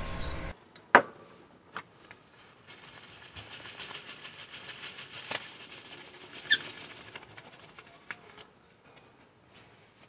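Birdseed trickling down a paper chute into a cage's feed dish: a light patter of small grains with scattered small clicks, heaviest in the middle. A brief high chirp, falling in pitch, comes about six and a half seconds in.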